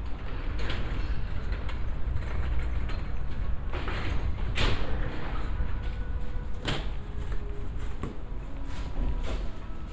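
City street ambience: a steady low rumble of traffic with several short sharp clatters and knocks, the loudest about four and a half seconds in.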